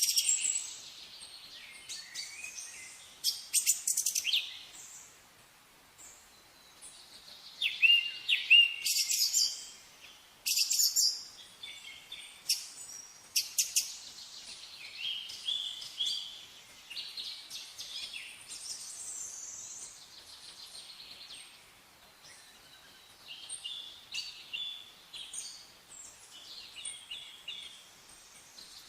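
Songbirds chirping and singing: high-pitched chirps and trills in irregular bursts with short pauses between them.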